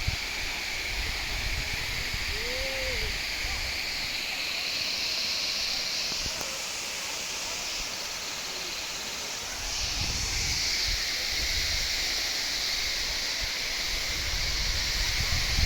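Steady rush of a waterfall, with low rumbles of wind and movement on the microphone that come and go.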